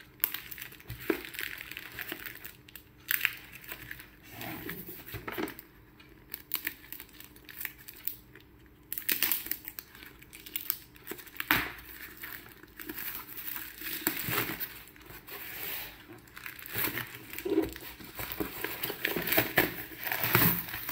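Shipping packaging being torn open and crumpled by hand: irregular crinkling and tearing with scattered clicks and handling knocks, easing off for a few seconds near the middle.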